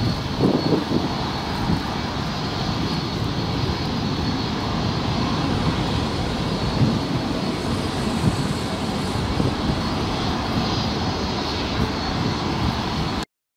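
Boeing 787-9's twin turbofan engines at climb power as the airliner climbs away after takeoff: a steady rumbling jet noise. It cuts off suddenly near the end.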